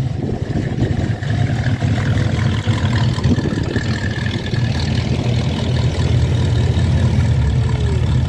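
Engine of a Chevrolet 3100 pickup running steadily at low speed as it drives slowly past, with a later Chevrolet pickup following close behind.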